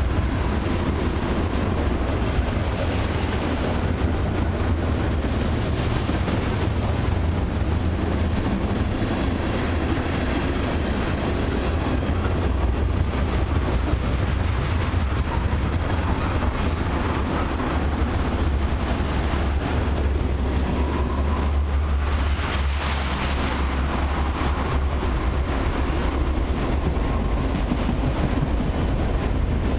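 Freight train's tank cars and autorack cars rolling past: steady steel-wheel-on-rail noise, heavy in the low end, with a dense run of wheel clicks and a brief brighter patch of high sound about two-thirds of the way through.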